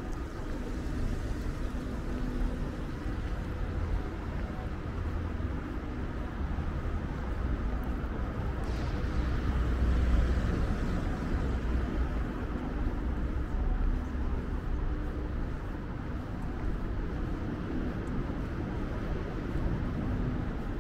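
Street traffic with a steady low rumble; a vehicle passes close about nine to eleven seconds in and is the loudest moment.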